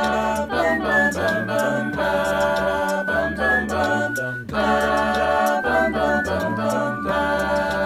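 A cappella group singing a wordless passage in close harmony: chords that change every second or so over a stepping sung bass line.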